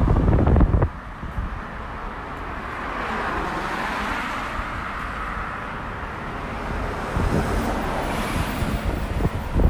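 Road traffic passing on the bridge roadway: tyre and engine noise swells as a car goes by about four seconds in and again near the end. Wind buffets the microphone with a low rumble at the start and again at the very end.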